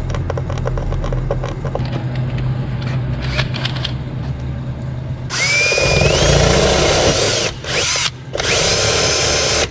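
Cordless drill boring a hole into a boat's fibreglass hull: the motor whines up in pitch as it spins up and bites, in two loud runs, the first about five seconds in and the second near the end. Before that there is a steady low hum with scattered light clicks.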